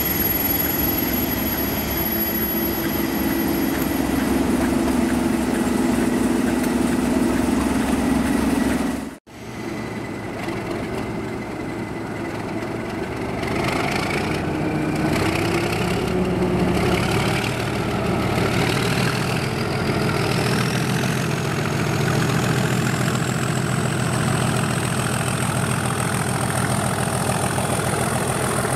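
English Electric Class 37 diesel locomotive's V12 engine idling while standing, with a brief dropout in the sound about nine seconds in. The engine is then opened up to pull away: a turbocharger whistle rises steadily in pitch and the engine note grows heavier as it takes the load.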